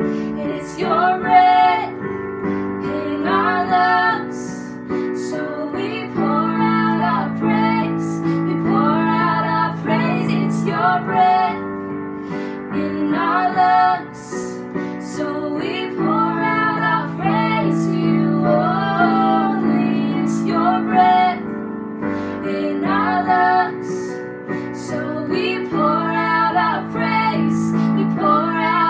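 A woman singing a slow song over piano or keyboard chords, in phrases of a second or two with short breaks between them.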